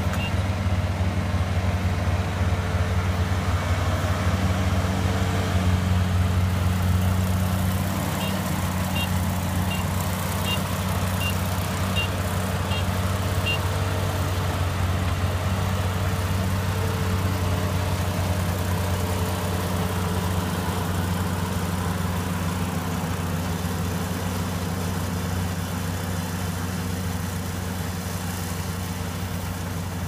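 Iseki 447 rice combine harvester's diesel engine running steadily under load as it cuts rice, a low even hum that slowly grows quieter as the machine drives away along the row. A faint, evenly spaced high beeping repeats for a few seconds about a third of the way in.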